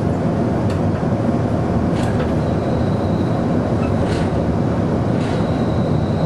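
Low-floor streetcar running along its track, heard from inside the car: a steady rumble with a few sharp clicks. A faint, steady high whine comes in about two and a half seconds in.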